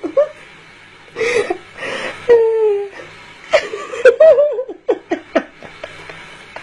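A person laughing in breathy, high-pitched bursts, with some short voiced sounds in between.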